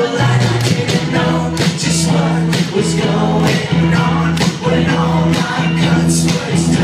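Live rock band playing: a male singer over electric guitars, bass and a steady drumbeat.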